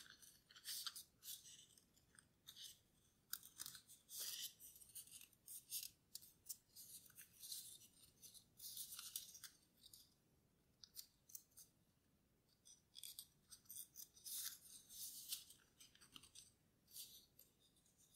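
Faint crinkling and rustling of a sheet of paper being folded and creased by hand into a paper airplane, in short irregular bursts with a lull a little past halfway.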